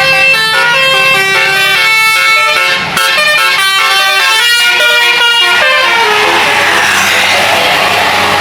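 Multi-tone 'telolet' air horn on a tour bus playing a quick stepping melody, note after note, with a short break about three seconds in. From about six seconds in the melody gives way to a steady rush of noise.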